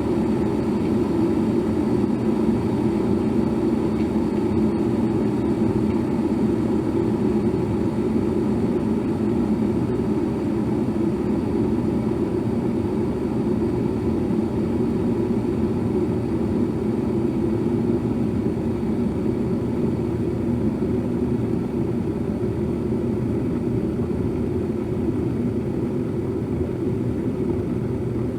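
Electric kettle at the boil: a steady, deep-toned bubbling of water in the kettle, unchanging throughout.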